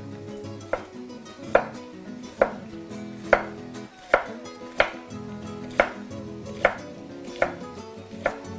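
Kitchen knife chopping on a wooden cutting board in slow, slightly uneven strokes, about one a second, each a sharp knock.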